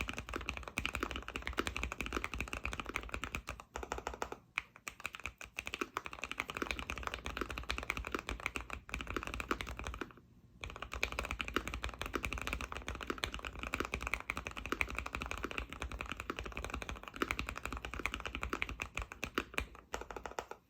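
Continuous fast typing on a Keychron Q1 mechanical keyboard fitted with a brass plate, with GMK keycaps and hand-lubed Aqua King V3 linear switches. It pauses briefly about four seconds in and again near the middle.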